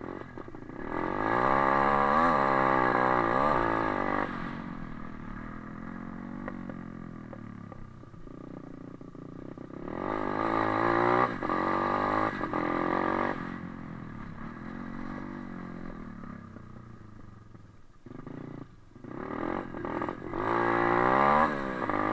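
YCF 125 pit bike's single-cylinder four-stroke engine being ridden, revving up hard three times under acceleration, with the pitch rising each time and the engine note dropping back to a quieter, lower running between the bursts.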